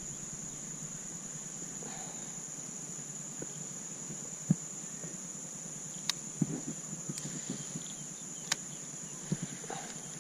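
Steady, high-pitched chorus of insects droning without a break, with a few light clicks and knocks near the middle and later on.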